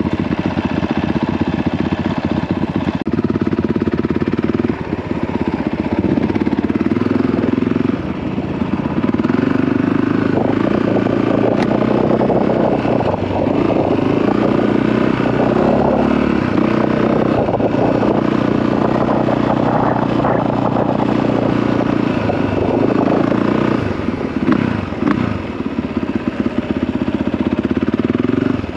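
Honda CRF450R single-cylinder four-stroke dirt bike engine running under way as the bike is ridden, the engine note easing off briefly about five and eight seconds in and rising and falling near the end as the throttle changes.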